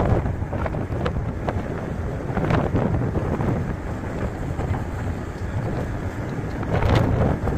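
Wind buffeting the microphone on an open ferry deck: a rumbling rush that comes in gusts, swelling louder about seven seconds in.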